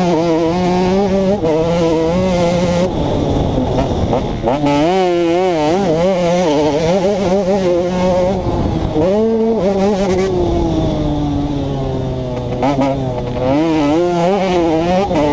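2011 KTM 150 XC two-stroke single-cylinder dirt bike engine under hard riding, revving up and dropping off again and again as the throttle is worked. About ten seconds in there is a long falling pitch as the throttle is rolled off, followed by more quick rises.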